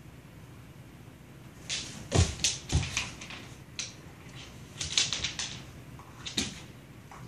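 A dog's claws clicking and paws thumping on a hardwood floor as she pounces on and bats at a piece of kibble. Quick clusters of clicks come about two seconds in and again around five seconds, with two heavier thumps in the first cluster.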